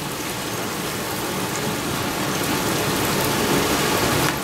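Bananas frying in butter oil on a hot flat-top griddle: a steady sizzling hiss.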